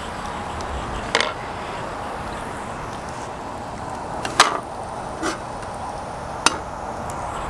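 Shallots and garlic sizzling in butter in a cast-iron pan over a fire, with four sharp pops, the loudest a little past the middle.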